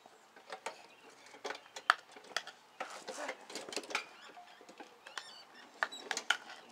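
Ford pedal tractor and its towed trailer rolling over a concrete driveway as it is pedalled, giving irregular light clicks and rattles.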